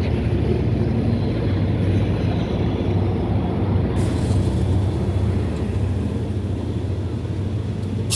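GEA-class diesel-electric locomotive 4556 and a second locomotive passing close at speed, their diesel engines giving a loud, steady rumble. A hiss brightens about halfway through as the passenger coaches start rolling by.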